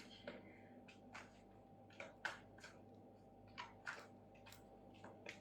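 Oracle cards being shuffled and handled by hand: a string of faint, irregular soft card flicks and taps.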